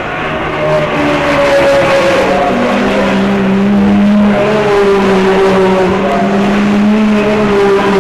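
1966 Formula One race cars going past at speed, several engines at once. Their notes overlap at different pitches, some dropping as the cars pass.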